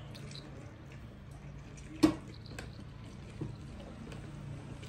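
Orange halves being pressed and twisted on a hand-operated plastic citrus juicer, with juice squelching and dripping into the jug below. A sharp knock about two seconds in and a smaller one about a second later.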